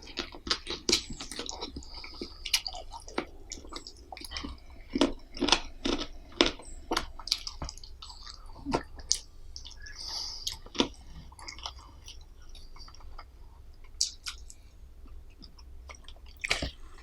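Close-miked eating sounds: a person chewing and biting food, with many short sharp mouth clicks and smacks. The clicks come thickly at first, thin out for a few seconds past the middle, and pick up again near the end.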